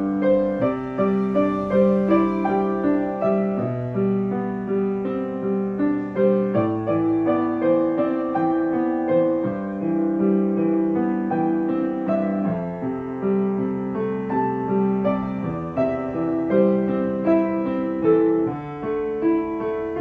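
Grand piano played solo: a piano arrangement of a pop ballad, with chords and melody notes ringing over a bass line that moves about once a second or two.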